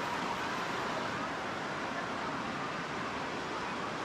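Steady rushing noise of an indoor water park: running water and splashing in a large echoing hall.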